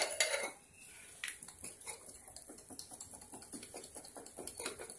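Salad pieces (cucumber, tomato, paneer) tumbling inside a glass bowl with a steel lid as the bowl is shaken to mix: a soft, irregular rattle of many small knocks.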